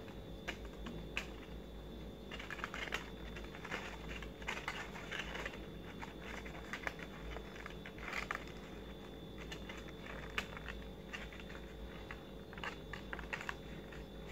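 Stiff paper petals being handled and pressed into place: faint scattered rustles and small clicks, over a low steady hum.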